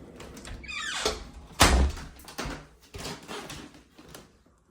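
A short scraping slide, then one loud bang with a deep thud, followed by a few lighter knocks as something is shut and handled.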